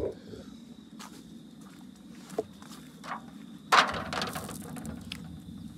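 An aluminium foil pan of water holding a skinned beaver carcass being handled: a sharp knock at the start and a few light ticks, then a burst of splashing and crinkling foil about four seconds in as the wet carcass is taken out of the water.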